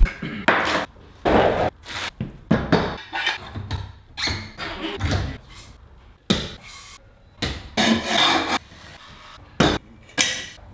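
Freestyle scooter being assembled by hand: a quick, irregular string of short knocks, clanks, scrapes and rubs from metal parts and hand tools, with brief gaps between them.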